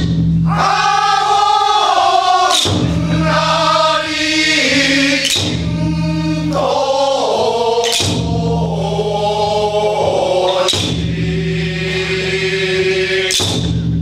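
A men's chorus singing Awaji danjiri uta, the joruri-style festival song, together in long, gliding held notes over a steady low tone. A sharp stroke marks the beat about every two and a half seconds.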